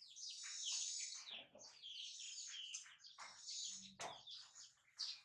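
Baby monkey giving high-pitched squeaky cries, one after another in quick falling chirps. There is a brief sharp click about four seconds in.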